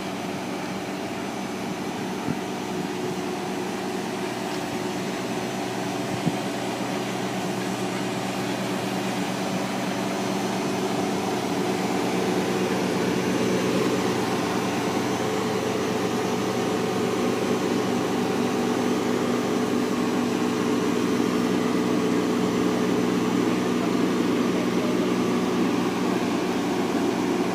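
Steady machine hum with several held low tones. It grows a little louder over the first dozen seconds, then holds.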